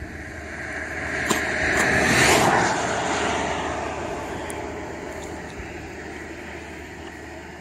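A vehicle passing close by: its noise swells to a peak about two seconds in, then slowly fades away.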